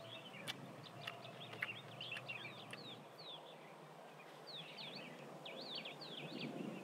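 Birds chirping in many short, quick high notes over a steady outdoor background hiss, with a few faint clicks in the first couple of seconds.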